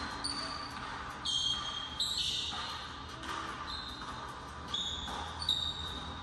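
Basketball being dribbled on a hardwood court, with several short, sharp high squeaks of sneakers as the players cut and shuffle.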